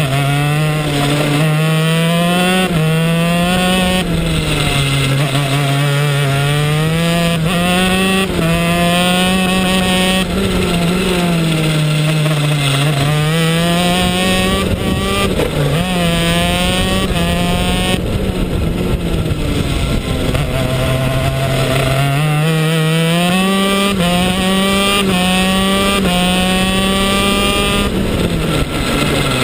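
125cc two-stroke shifter kart engine at full effort, its pitch climbing repeatedly and dropping abruptly at each gear change, and sinking away when the kart slows for corners.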